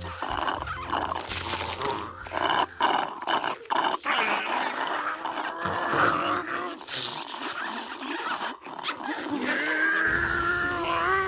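Cartoon slurping and gurgling of a malt drink sucked through a straw, drawn out in irregular noisy gulps. Near the end it turns into a held pitched sound that rises slightly.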